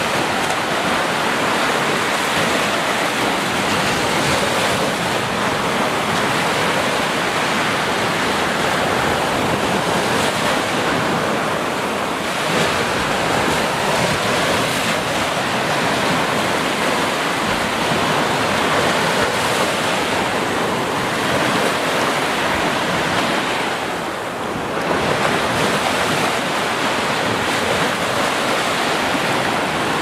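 Small ocean waves breaking and washing up on a sandy beach: a continuous rush of surf, with a brief lull a little over three-quarters of the way through.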